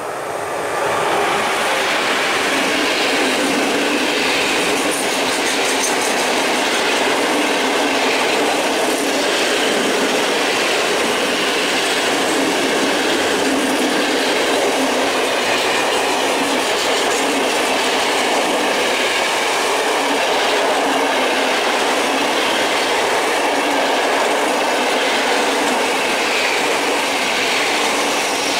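Container freight train's flat wagons passing close by, a steady noise of steel wheels running on the rails that starts about a second in and holds without a break.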